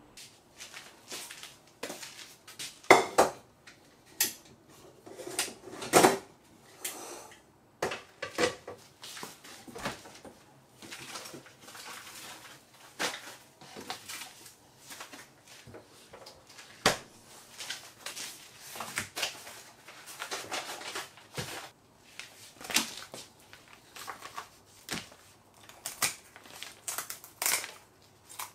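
Kitchen handling sounds: metal pots, a lid and utensils clinking and knocking against each other and the counter in irregular sharp knocks, loudest about three and six seconds in.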